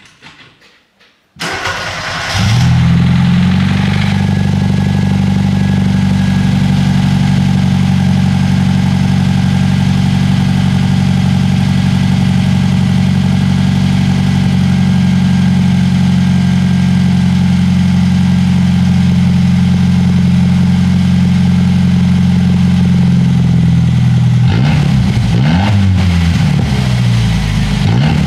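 Ford Fiesta Mk3's 1.1-litre four-cylinder engine with its silencers removed, running on an open cut-off pipe: it starts about a second in, idles steadily and loudly, then takes a few quick revs near the end.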